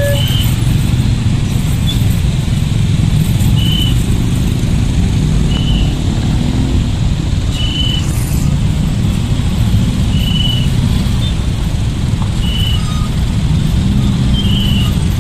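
Dense traffic of many motorcycle and car engines running and moving off together, a steady low rumble. The level crossing's electronic two-tone alarm cuts off at the very start, and short high beeps recur every two seconds or so.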